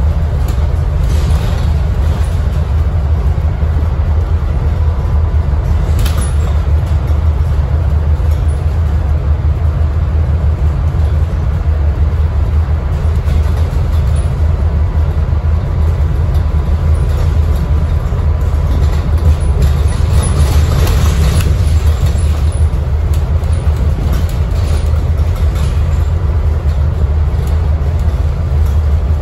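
Scania N250UD double-decker bus heard from inside the passenger cabin while under way: its five-cylinder diesel engine a steady low drone with road noise, and a few brief rattles or clicks from the body.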